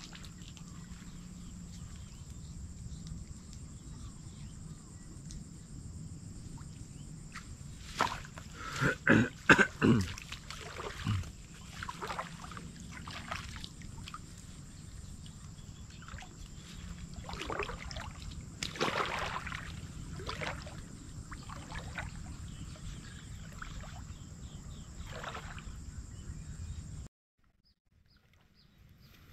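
Water sloshing and splashing as a person wades and works in knee-deep floodwater, with a cluster of louder splashes about eight to ten seconds in and more around the middle. A thin steady high tone runs underneath, and the sound cuts out abruptly near the end.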